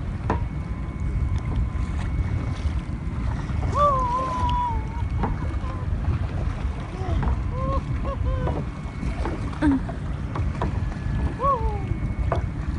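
Wind buffeting a phone's microphone on open water, a steady low rumble. A few faint, short, high-pitched calls are heard far off over it.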